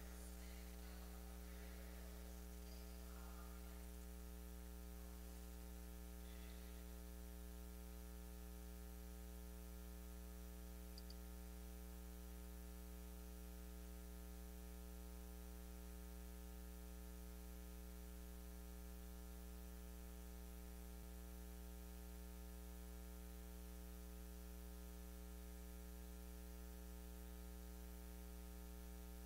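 Faint, steady electrical mains hum with many evenly spaced overtones. A few faint, indistinct sounds appear in the first several seconds.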